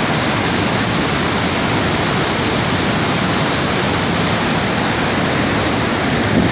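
Waterfall: white water rushing steadily down and over rocks, a loud, even rush of water.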